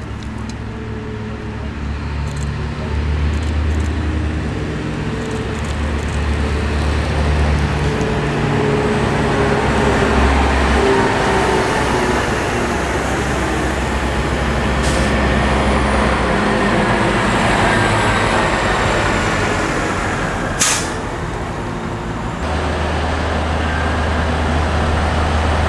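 Heavy military trucks' diesel engines running as the trucks drive past, the engine and tyre noise building and fading. There is a short sharp burst about 21 seconds in, then a steady low engine hum from idling vehicles.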